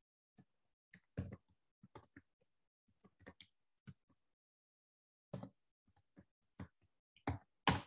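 Computer keyboard typing: quiet, scattered keystroke clicks at irregular intervals, with silence between them.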